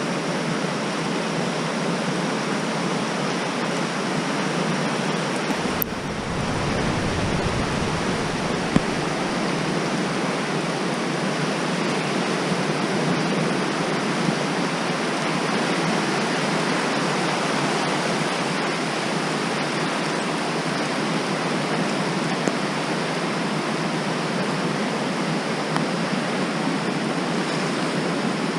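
Loud, steady rush of water. A low rumble joins in for about three seconds, around six seconds in.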